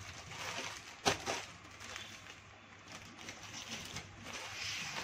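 Crinkling and rustling of clear plastic packaging as plastic-wrapped suit packets are picked up and moved off a table, with one sharp tap about a second in.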